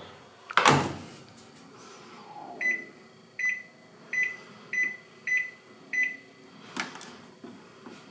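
Combination microwave oven door pushed shut with a knock about half a second in, then six short electronic beeps, evenly spaced, as its control-panel buttons are pressed, and a click near the end.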